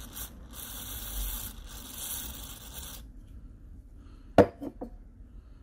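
Aerosol PCB cleaner sprayed in a few short bursts of steady hiss, applied to loosen a stuck phone battery's adhesive. A little after four seconds in, a sharp knock is followed by two lighter taps.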